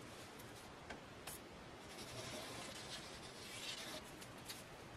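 Faint scratching of a liquid-glue bottle's nozzle drawn along a paper envelope while a bead of glue is squeezed out, with a couple of light clicks about a second in.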